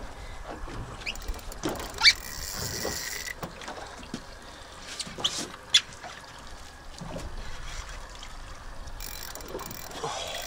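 Water sloshing and trickling around a small boat's hull, with a few sharp knocks or splashes, the loudest about two seconds in and two more around five to six seconds in.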